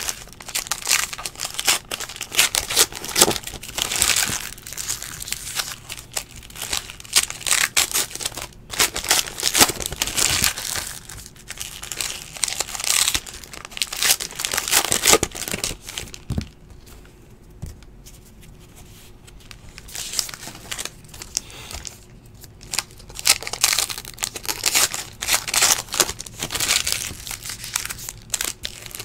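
Trading card pack wrappers being torn open and crinkled while cards are handled, a steady run of crackling and rustling with a quieter lull in the middle.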